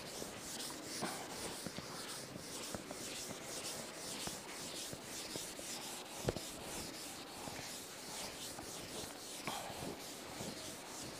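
Chalkboard duster wiping chalk off a blackboard in repeated faint scrubbing strokes, with a single light knock about six seconds in.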